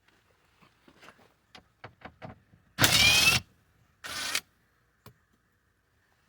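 A cordless power tool on the 10 mm bolts of a car door runs in two short bursts, the first about half a second long with a rising whine, the second shorter about a second later, after a few light clicks of handling.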